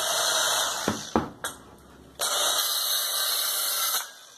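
Small handheld mini circular saw running as it trims a notch in a bamboo slat. It stops about a second in, with a few sharp clicks, then starts again abruptly and runs until it cuts off near the end.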